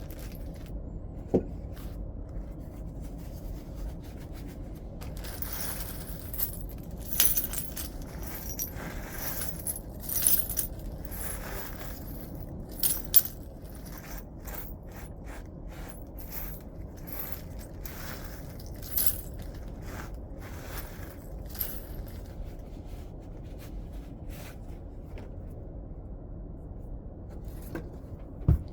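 Stone being flintknapped by hand: a run of sharp clicks and scraping strokes as flakes are struck or pressed off and the edge is worked. The strokes are densest in the first half and sparser later, over a steady low hum.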